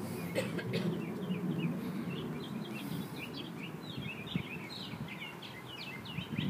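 Songbirds chirping in many quick, short calls that grow busier about halfway through, over a low, steady rumble that slowly fades.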